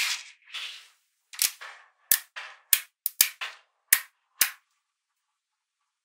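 Bars of small magnetic balls snapping together: a brief rattling rush at the start, then about seven sharp clicks over the next three seconds.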